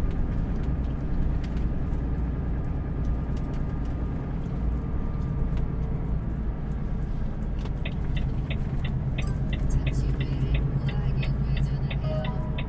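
Steady low rumble of a Volvo truck's diesel engine and road noise heard inside the cab while driving. About seven and a half seconds in, the turn-signal indicator starts ticking, about three ticks a second.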